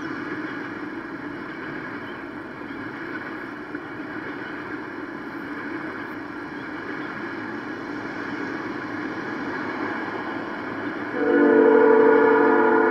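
A steady rumble, then a train horn sounds loudly about 11 seconds in: a long held chord of several notes.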